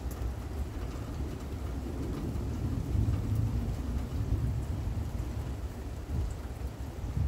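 Thunder rumbling low and rolling over steady rain, the rumble swelling about three seconds in and easing off toward the end.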